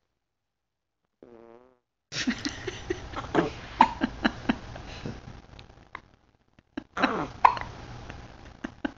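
Passing gas: a short buzzing fart about a second in, then longer sputtering stretches of flatulence with many sharp pops, one lasting about four seconds and another of about a second and a half near the end, from someone who has gas and the hiccups.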